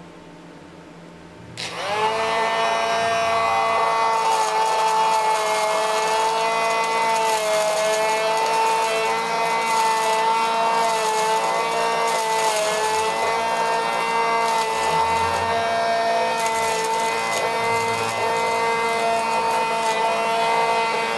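Small electric motor of a homemade plastic-bottle vacuum cleaner switched on about two seconds in, spinning up quickly and then running with a steady whine.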